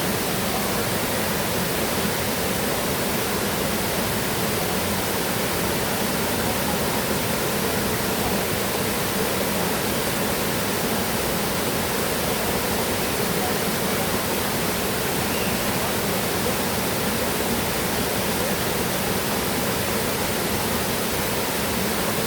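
Water of a stream rushing over rocks, a steady even rush that holds constant throughout.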